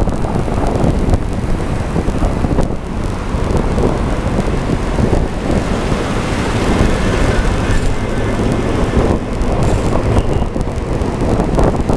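Wind buffeting the camera's microphone on a moving car, a heavy, gusty rumble over the car's road and engine noise.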